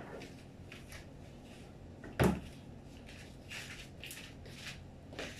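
A single loud thud about two seconds in, followed by a few fainter clicks and rustles of kitchen handling.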